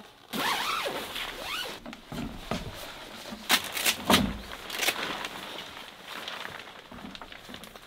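Car-docking tent's fabric rustling and being handled, with a few sharp knocks and one heavier thump about halfway through.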